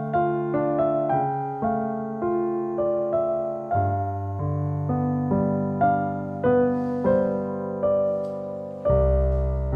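Background piano music: a slow melody of single notes, about two a second, over held bass notes.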